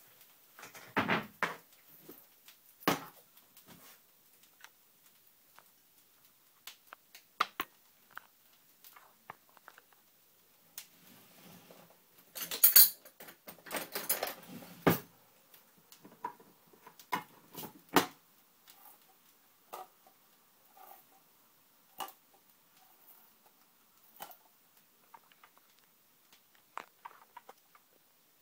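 Scattered knocks, clinks and rattles of tins and kitchen utensils being handled on a kitchen counter, with a louder clattering stretch of a few seconds about halfway through.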